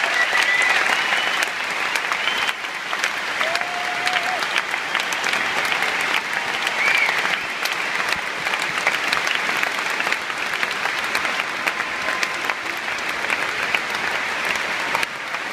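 A large stadium crowd applauding: dense, steady clapping from thousands of spectators.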